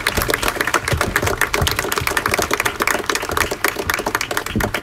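Crowd applauding: a dense, steady patter of many hand claps that cuts off suddenly at the end.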